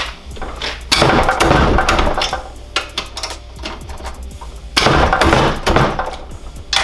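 Porter-Cable impact tool hammering in two bursts, about a second in and again near five seconds, trying to break a cylinder head bolt loose on a Honda GX270 engine.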